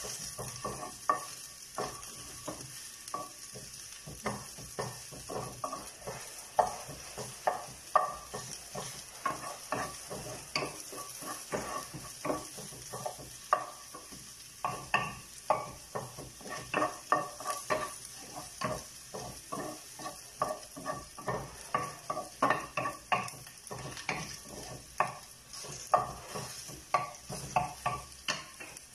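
A wooden spoon knocks and scrapes irregularly against a granite-coated frying pan as sliced onion is stirred and sautéed in a little oil. A steady sizzle runs underneath. The knocks come quicker near the end.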